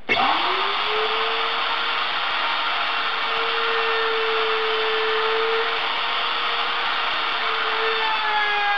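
Router motor switched on, winding up to full speed over about a second, then running steadily with a high whine. Its pitch dips slightly near the end.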